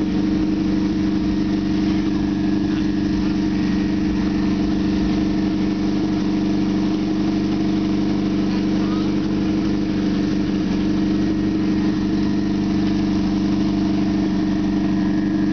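Ford Fiesta rallycross car's engine idling steadily, a constant low hum with no revving.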